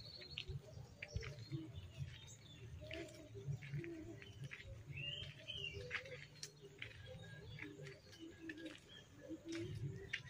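Faint bird chirps: a few short calls, about three and five seconds in, over scattered soft low knocks.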